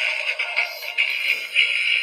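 Electronic tune from a children's sound book's small speaker, thin and without bass.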